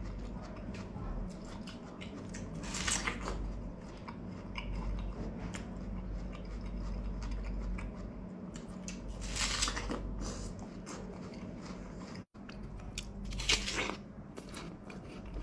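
Biting into and chewing slices of juicy Hami melon: soft wet crunching with small clicks, and three louder bites spread through.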